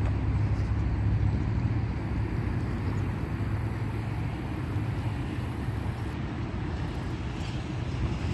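Steady low rumble of road traffic, an even vehicle drone without distinct passes or breaks.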